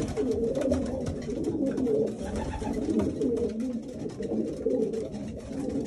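Several racing pigeons cooing at once in a loft, a continuous overlapping warble, with scattered light clicks.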